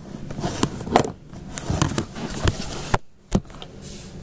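Handling noise: a string of irregular clicks and knocks as small plastic radio parts are handled and the recording tablet is held in hand, with a short pause just after three seconds in.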